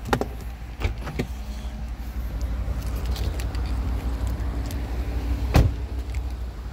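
Car engine idling with a steady low rumble, broken by a few sharp clicks and knocks, the loudest about five and a half seconds in.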